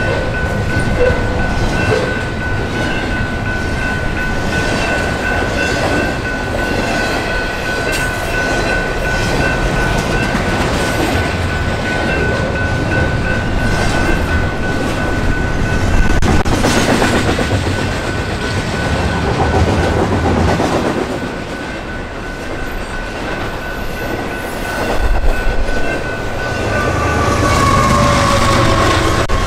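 A train rolling past at close range, its wheels clicking over the rails, with a steady high whine over the rumble. Near the end a falling tone comes in.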